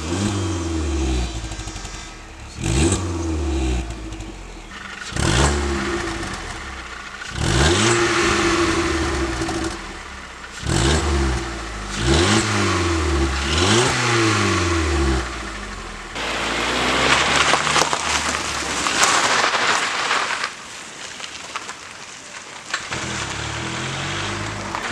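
VW Golf 4 1.4 petrol four-cylinder engine, fitted with a K&N performance air filter, revving up and dropping back about six times. After that comes a stretch of rushing noise with the engine faint.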